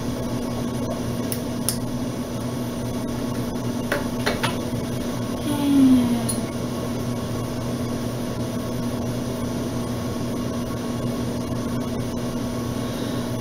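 Steady low mechanical hum throughout, with a few faint clicks in the first five seconds and a brief falling vocal hum about six seconds in.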